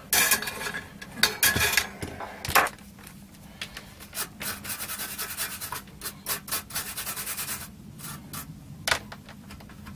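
Rubbing and scraping in short irregular strokes, with a quicker run of strokes in the middle, as a circuit board and tools are handled on the bench.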